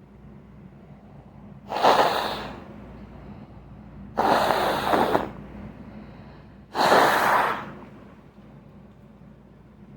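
A person blowing their nose hard three times, each blow a noisy rush of air lasting about a second.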